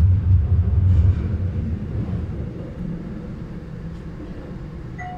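Metro train running, heard from inside the carriage. A loud low rumble fades about two seconds in, leaving a quieter steady running noise.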